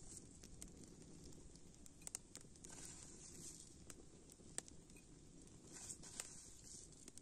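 Faint crackling of a small wood campfire, with a handful of sharp pops scattered through it.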